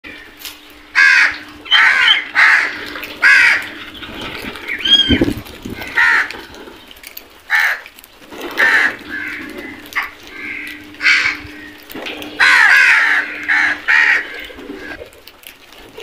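A flock of house crows cawing: a string of loud, harsh caws from several birds, coming one or two a second with short gaps.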